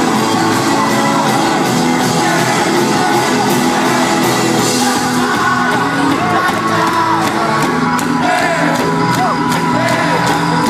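Rock band playing live in a large hall on electric guitars, bass and drums, with singing and with shouts and whoops from the crowd.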